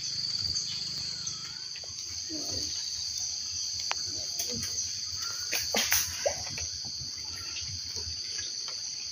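Steady high-pitched chorus of insects in the forest, with a few short clicks and rustles about halfway through.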